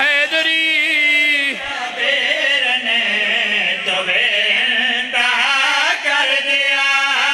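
Men's voices chanting a qasida refrain together, with long held notes whose pitch bends and wavers.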